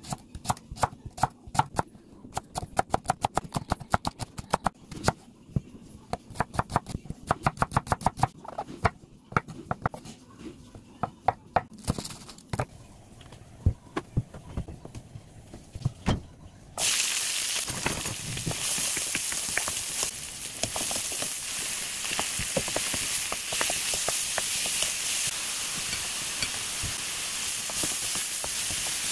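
A kitchen knife chopping a large green onion on a wooden cutting board in quick runs of strokes. About 17 seconds in, a loud steady sizzle starts as squid and green onion fry in hot oil in a pan.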